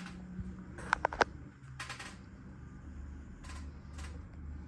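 1988 Design House Manhattan ceiling fan running in reverse on a variable-speed control, its motor humming steadily. A few sharp clicks come close together about a second in, and the hum shifts lower soon after.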